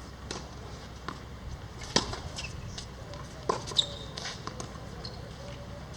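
A few scattered knocks and taps, the clearest about two seconds in and again about three and a half seconds in, over a steady low background.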